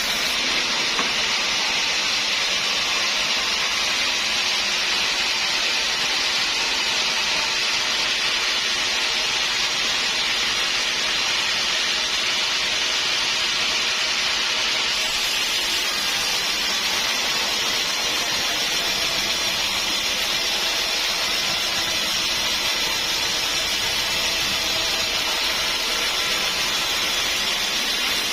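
Sawmill blade cutting through a hard, dense acacia wood stump: a steady, high-pitched cutting noise that holds even throughout.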